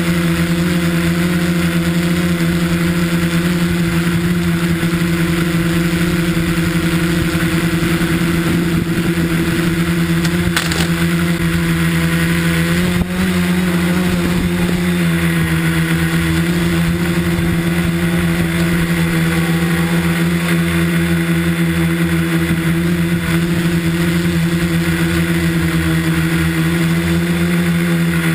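Tricopter's electric motors and propellers running, heard close from the onboard camera: a steady buzzing hum that wavers slightly in pitch as the throttle changes, with a brief drop about halfway through.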